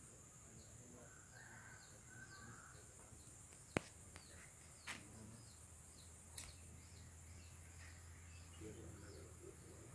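Faint rural outdoor ambience: a steady high-pitched insect drone with many short bird chirps over it, and three sharp clicks in the middle.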